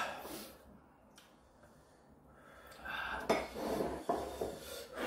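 Chopsticks clinking and knocking against a cooking pot and ceramic bowls as noodles are lifted out, with a string of small sharp clicks from about three seconds in after a short quiet spell.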